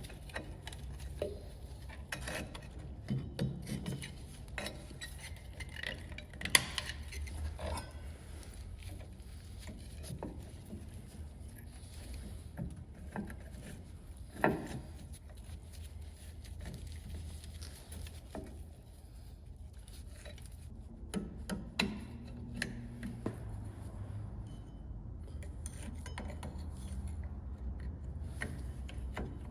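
Hand tools and small metal brake parts clinking and tapping at irregular intervals during work on a truck's brake assembly, with a few sharper knocks, over a low steady hum.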